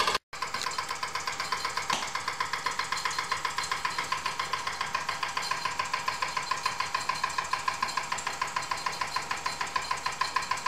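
Wilesco D6 toy steam engine running, its single oscillating cylinder puffing in a quick, even rhythm as it turns the line shaft driving a model drill press and grinder.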